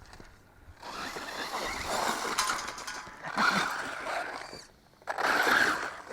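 JLB Racing Cheetah RC truck running on a 2S lipo, driven in three bursts of throttle with short lulls between.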